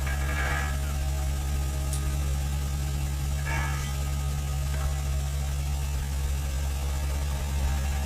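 Excavator's diesel engine running with a steady low drone, with two short higher-pitched sounds, about half a second in and about three and a half seconds in.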